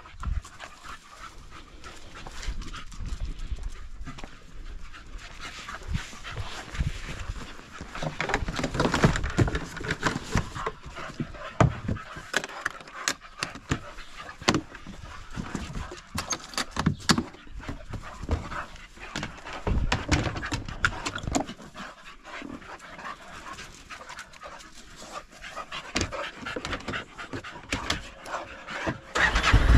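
A dog panting close by, with scattered clicks and rustles.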